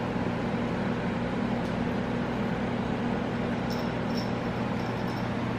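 Steady low electrical or mechanical hum of room noise, with a few faint light clicks a little under four seconds in.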